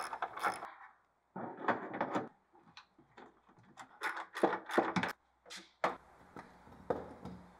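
Ratchet wrench on a long socket extension tightening the bolts of a steel antenna hood mount, giving a series of irregular clicks and knocks.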